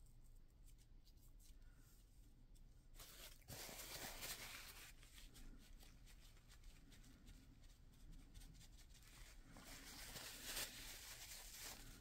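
Faint rustling and handling of paper and craft materials, in two short spells a few seconds apart.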